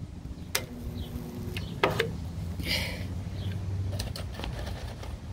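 Electric stud-welding dent puller at work on a car body panel: a few sharp clicks and a short hiss about three seconds in, over a low steady hum.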